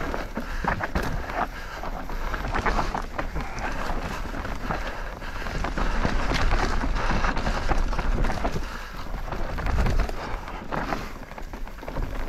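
Mountain bike descending rocky singletrack: tyres rolling over rock and dirt, with repeated knocks and rattles from the bike over the bumps, and wind on the microphone.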